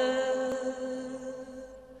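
Solo chanting voice holding one long, steady note that slowly fades away.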